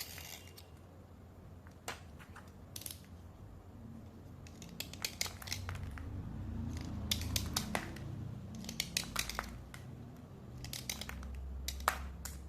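Chalky slate pencils being dry-scraped and handled, giving short sharp scratches and clicks. A few are spaced out early, then they come in quick clusters in the second half.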